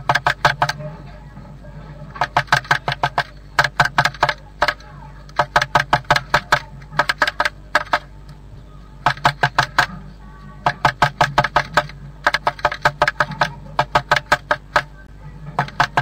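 Blue tit pecking at the inside wall of a wooden nest box: rapid bursts of sharp wooden taps, about eight to ten a second, each burst lasting about a second with short pauses between, over a steady low hum.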